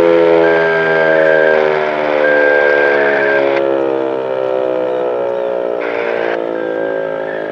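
American Signal T-121 rotating outdoor warning siren winding down at the end of a test, its tone sliding slowly lower while the sound swells and eases as the rotating horn sweeps around. A thin high tone sounds on and off over it.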